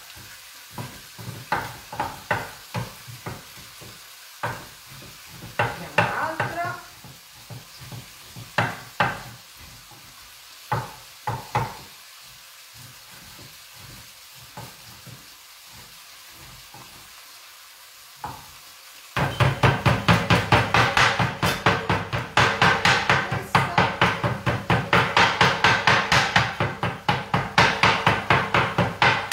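Kitchen knife on a wooden cutting board cutting veal shank meat: scattered single knocks at first. About two-thirds of the way in it turns to rapid, steady chopping, several strokes a second, as the meat is minced.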